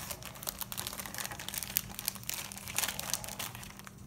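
Clear plastic zip-top bag crinkling in the hands as it is pulled open and a plastic pinning tray is taken out: many small irregular crackles of thin plastic, over a faint steady hum.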